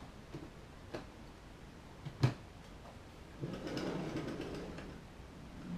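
Heavy O gauge model diesel locomotives being handled on a track panel: a few light clicks, a sharp knock a little over two seconds in, then a couple of seconds of scraping rumble.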